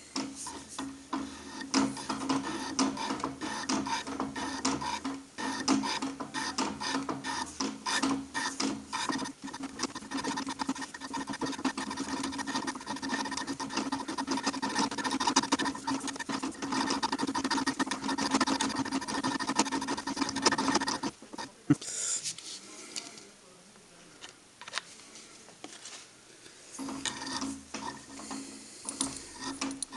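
Beaver VBRP milling machine running, its cutter machining a welded cast aluminium plate with a steady hum and a dense scratchy cutting noise. The machine stops about two-thirds of the way through and starts up again near the end.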